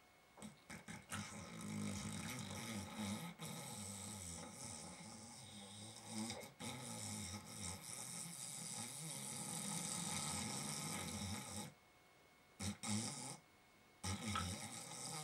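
A sleeping person snoring, with a break of about two seconds near the end.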